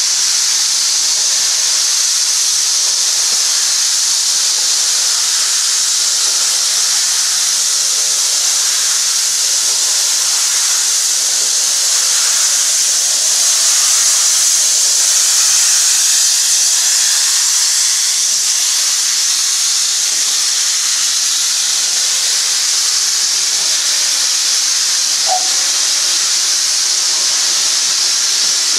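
GWR 57xx Class 0-6-0 pannier tank locomotive letting off steam: a loud, steady hiss of escaping steam that goes on without a break, with no exhaust beats heard.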